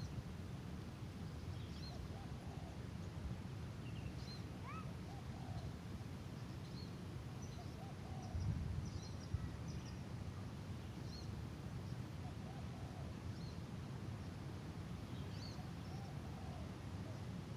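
Outdoor ambience: faint, scattered small bird chirps and short calls repeating throughout, over a steady low rumble.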